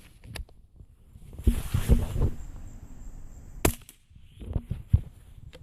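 Marlin bolt-action .22 rifle worked and fired with subsonic CCI CB long caps: a series of sharp metallic clicks and clacks from the bolt and a quiet shot, the action about as loud as the gun itself.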